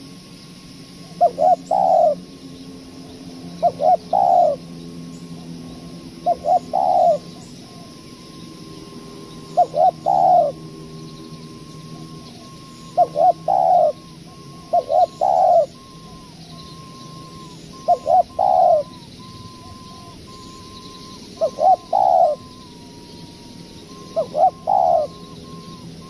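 Spotted dove cooing: nine short phrases, each two or three quick coos followed by a longer one, repeated every few seconds. A thin steady high tone runs faintly beneath.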